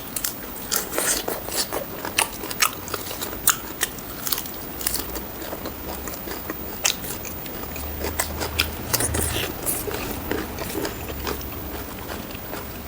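Close-miked eating of fried pork ribs with rice: biting and chewing with sharp crunchy clicks at irregular intervals.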